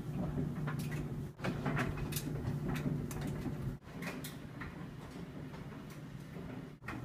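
LG front-loading laundry machine running: a steady low motor hum with irregular clicks and knocks from the turning drum and its load, broken by three brief dropouts in the sound.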